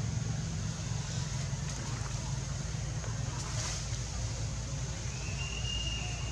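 Steady low outdoor rumble with a faint hiss, and a thin high whistle that comes in near the end.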